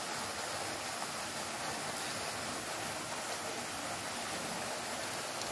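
Steady, even hiss of running or falling water, with no distinct drops, splashes or calls standing out.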